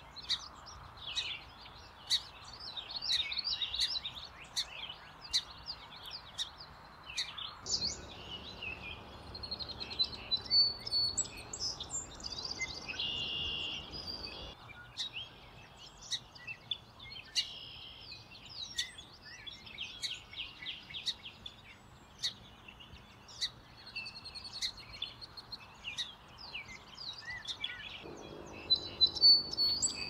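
Song sparrows singing: phrases of sharp chirps, trills and whistled notes, repeated throughout, over a low background hiss that changes a few times.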